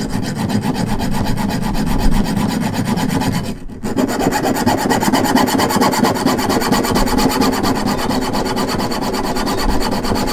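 Junior hacksaw sawing back and forth through black edge trim, a fast, even run of rasping strokes with a brief pause about three and a half seconds in. The blade is barely getting through, which the user puts down to a poor wood-cutting blade.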